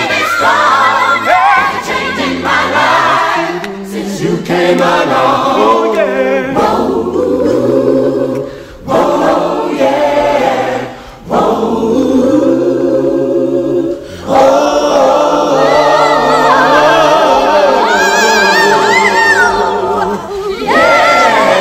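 Gospel choir singing together, holding long notes, with short breaks between phrases.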